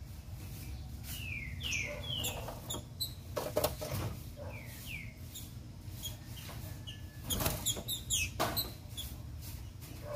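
Female green-winged saltator (trinca-ferro) calling: short, high chirps that slide downward in pitch, in scattered groups. This is the female call keepers play to rouse a male trinca-ferro to sing. A few sharp knocks come around the middle and near the end.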